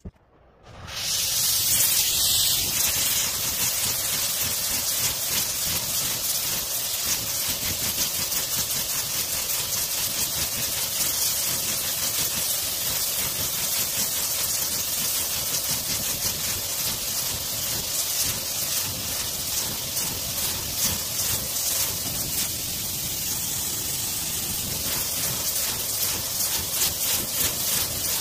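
Gas torch lit with a click, its flame coming up within a second to a steady, loud hiss as it heats a steel exhaust pipe for bending. The hiss flutters a little near the end.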